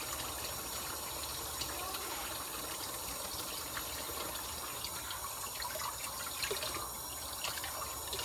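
Kitchen tap running steadily into the sink while dishes are washed, with a few faint clicks of dishes.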